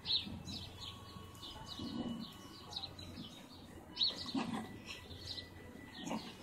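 Small birds chirping in short, repeated calls, loudest near the start and about four seconds in, with a few soft low sounds in between.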